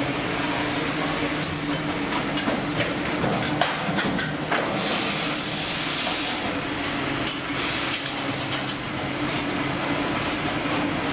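Machinery running steadily with a constant hum, and irregular sharp clicks and knocks over it.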